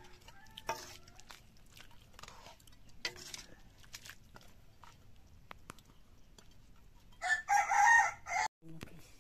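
A rooster crows once near the end, a loud call of about a second and a half in two parts. Before it, faint scrapes and clinks of a metal ladle stirring curry in an aluminium pot.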